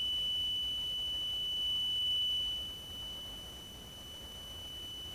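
Faulty end-of-life smoke detector, submerged in a bucket of water, still giving off a constant high-pitched tone, the sign of its malfunction. The tone holds steady and drops in level about three seconds in.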